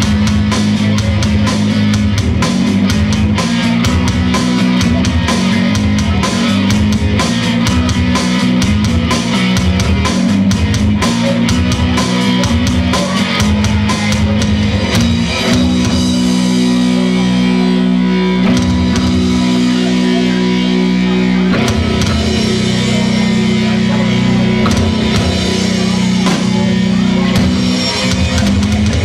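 Live rock band playing loudly with electric guitars and a drum kit. About halfway through the drums thin out under a long held low chord, then the full beat comes back in.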